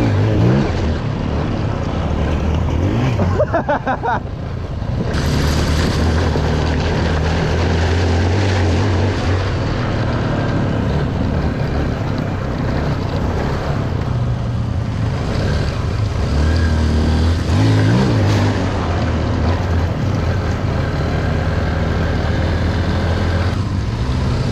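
Dirt bike engine running under way, revving up a few times as it pulls through gears, with water splashing from the tyres as it rides through a shallow stream.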